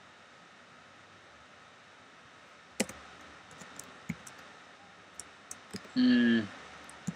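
Computer keyboard keys clicking as code is typed: a few scattered keystrokes, the first and sharpest about three seconds in. About six seconds in there is a short hummed voice sound.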